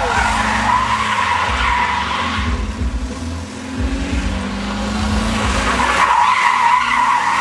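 BMW saloon drifting, its tyres squealing over the sound of its revving engine. The squeal is strong for the first couple of seconds, dies down, and comes back loudest near the end as the car slides past close by.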